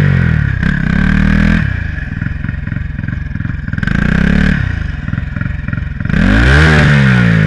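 Turbocharged Honda Titan 160 single-cylinder motorcycle engine with an open downpipe, revved in several short throttle blips. The last, about six seconds in, is the longest and loudest, with the pitch rising and falling.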